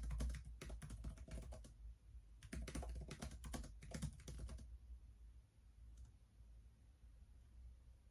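Typing on an HP laptop keyboard: two quick runs of key clicks, each about two seconds long, then a pause with a single click about six seconds in.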